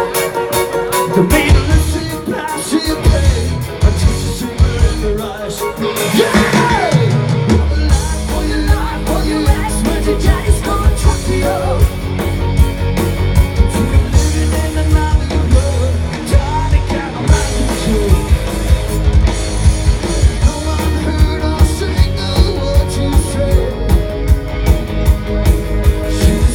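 Live rock band playing with singing and a steady drum beat.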